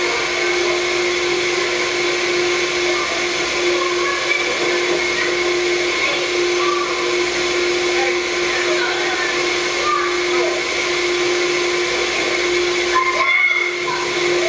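Steady hiss with a constant hum tone, as from worn videotape audio, with faint children's shouts and chatter underneath. There is a brief dropout near the end.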